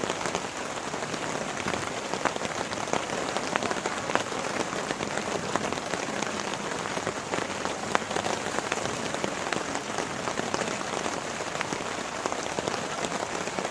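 Heavy rain falling steadily, with a dense patter of sharp drop taps over a constant wash.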